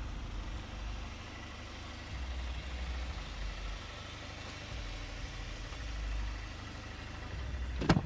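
2014 Cadillac CTS4's 2.0-liter turbocharged four-cylinder idling steadily, heard from outside the car. Near the end, a sharp click as the driver's door handle is pulled and the latch releases.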